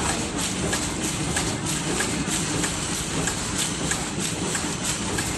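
Automatic packaging machine running, a steady mechanical whirr with sharp clacks about two to three times a second.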